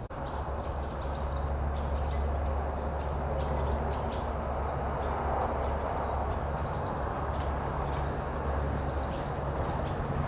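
Steady low rumble with an even hiss, and scattered faint short high chirps.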